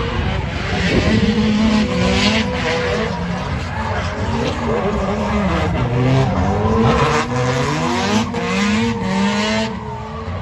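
Nissan 180SX drift car's engine revving up and down through a drift, its pitch repeatedly rising and falling, with tyre squeal coming and going over it.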